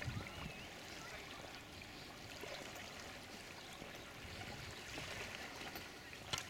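Faint trickling and splashing of water as kayak paddles dip and pull through the canal.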